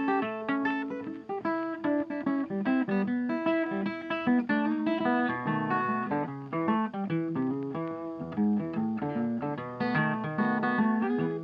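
Background music: plucked acoustic guitar playing a steady run of notes.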